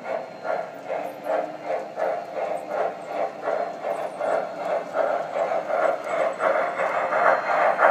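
Sound system of an MTH Premier O scale Erie Triplex model steam locomotive chuffing in a steady rhythm, about three chuffs a second, growing louder as the engine comes past.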